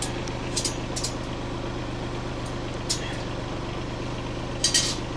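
A few sharp metallic clicks and rattles as the wire and trigger rod of a rusty wire cage trap are handled and set, the loudest near the end, over the steady hum of an idling engine.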